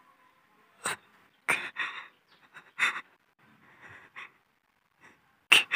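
A handful of short, shaky gasping breaths from a tearful anime character, spaced irregularly with silence between them, the last and loudest near the end.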